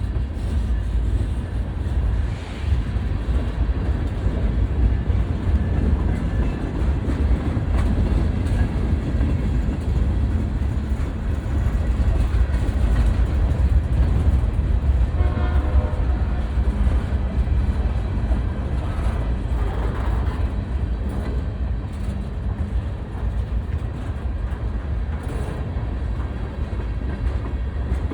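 BNSF train rolling past with a steady, heavy rumble and the clickety-clack of wheels over the rail joints. A brief high tone sounds about halfway through.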